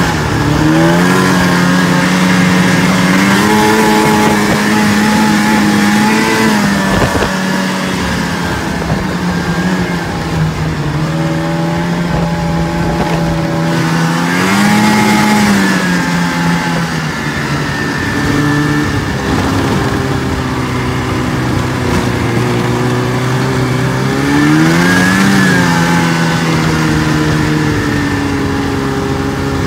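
Snowmobile engine running under way on a trail, its pitch rising as the throttle opens and dropping back a few times, over a steady rush of track and wind noise.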